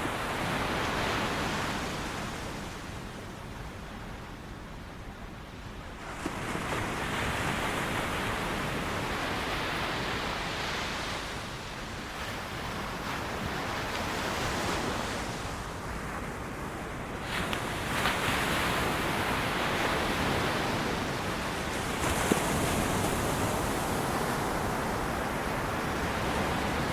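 Ocean surf breaking and washing up on a beach. It swells and eases in long surges, about one every five or six seconds.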